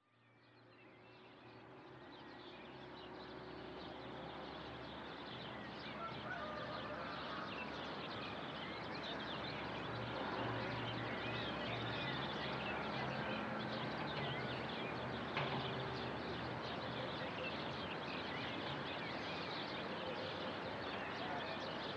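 Outdoor rural ambience fading in from silence: many birds chirping and calling over a steady faint low hum.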